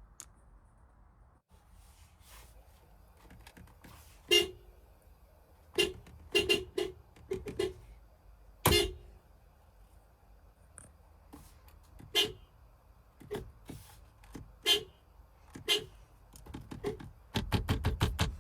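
Car horns sounding in a series of short honks, one loud honk about halfway through and a quick run of taps near the end, over a faint steady low rumble.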